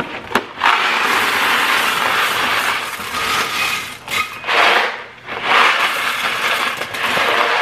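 Dry elbow macaroni poured from a cardboard box into a plastic-lined slow cooker: a steady hissing rattle of pasta pieces tumbling in, with a few sharp clicks at the start and two brief breaks about four and five seconds in.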